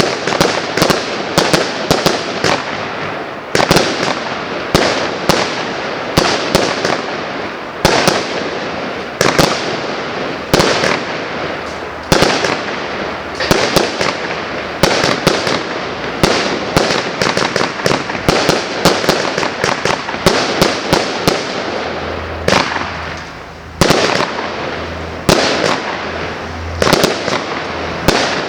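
A 150-shot, 0.8-inch fireworks cake firing in quick succession. Clusters of sharp bangs come every second or two, with crackle and sizzle from the bursting shells between them.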